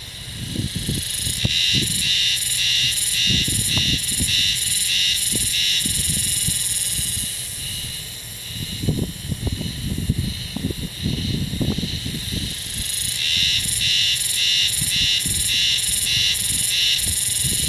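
Male haruzemi (spring cicada) singing: a rhythmic pulsing call of about three pulses a second that stops about seven seconds in and starts again about thirteen seconds in. Gusts of wind rumble on the microphone underneath.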